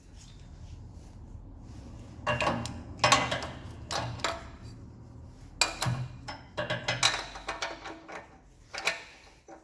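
Gasoline generator's recoil starter cord pulled about six times in quick, uneven succession, each pull a short rattling burst; the engine turns over but does not fire.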